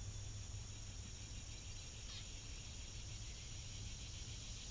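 Steady high-pitched chorus of insects with a fast pulsing chirp, over a faint steady low hum.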